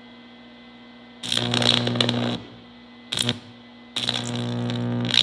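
Carbon arc struck between two carbon rods fed by a MIG welder at full power: a loud buzzing crackle for about a second, a brief spark just after three seconds, then the arc held and buzzing steadily near the end. Before the first strike only a steady low hum.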